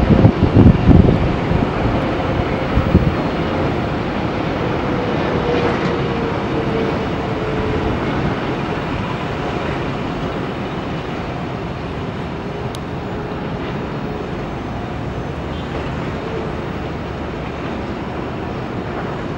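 Jet roar of a Boeing 777-300ER's GE90 engines on final approach and landing, steady throughout. Its whine slowly falls in pitch a few seconds in. Gusty low rumbles of wind on the microphone come in the first few seconds.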